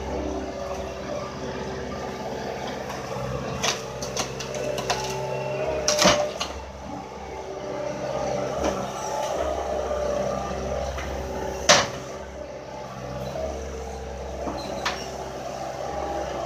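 Cat 226D skid steer loader's diesel engine running steadily as it works, broken by several sharp metallic clanks, the loudest about six seconds in and again near twelve seconds.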